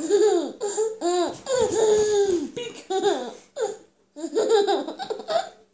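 A baby laughing: high-pitched giggles that come in four or five short bursts with brief pauses between them.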